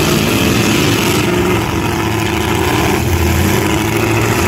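Demolition derby pickup trucks' engines running and revving as the trucks push against one another.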